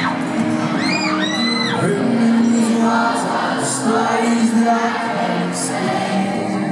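Live pop music from a band on stage, with a large crowd singing along and a few shrill whoops from fans about a second in.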